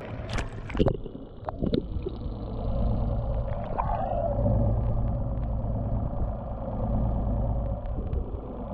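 A boat's engine running steadily with a low, muffled hum. A few sharp knocks come in the first two seconds.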